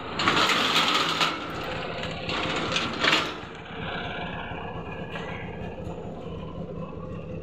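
Auto-rickshaw engine idling with a steady low hum, with two loud bursts of rustling handling noise in the first few seconds.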